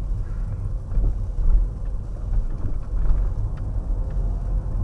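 Steady low rumble of a car driving slowly on a town road, heard from inside the cabin, with a few faint knocks.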